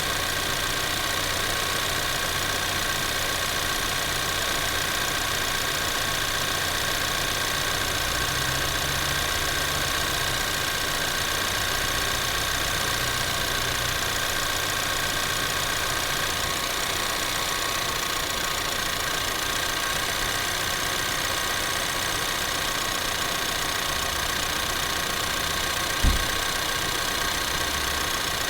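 Ford Maverick 2.0L EcoBoost engine idling with the air conditioning on, under a steady rush of the blower fan as it is switched between its low, medium and high speeds; these are normal sounds. Near the end there is a single sharp knock.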